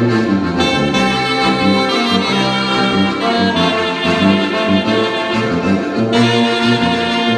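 Small ensemble of clarinet, trombone, tuba and two accordions playing a hymn together in held, chorale-style chords, the tuba carrying the bass line.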